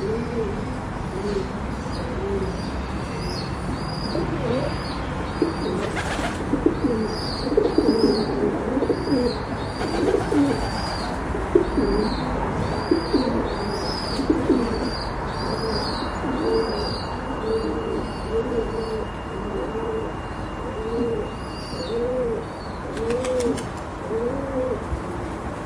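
A flock of pigeons cooing continuously, many overlapping low rolling coos, with a steady run of short high chirps from other birds over them.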